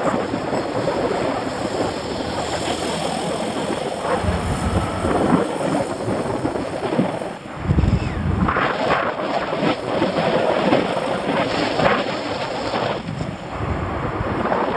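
Wind buffeting the microphone of a camera on a moving bicycle, mixed with road and traffic noise.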